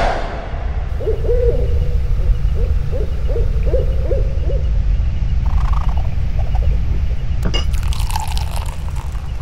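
An owl hoots in a series of about eight short hoots over a steady low rumble of night ambience. Near the end there is a sharp click, then liquor pours from a bottle into a glass.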